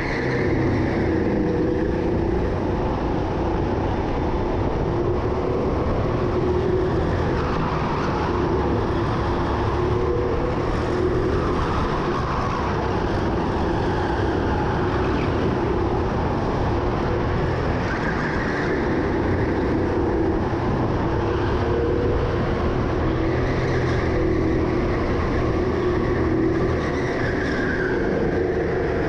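Indoor racing go-kart running continuously at race pace, its motor note rising and falling every few seconds as it drives through the lap.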